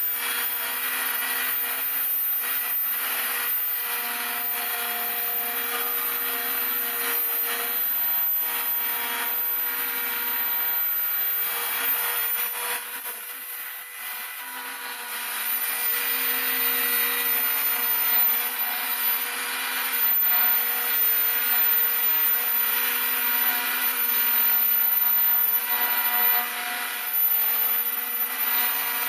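Homemade CNC router milling model-aircraft wing ribs: the spindle runs steadily with several held machine tones that shift as the axes move, and the cutter rasps through the workpiece. It goes briefly quieter about halfway through, then picks up again.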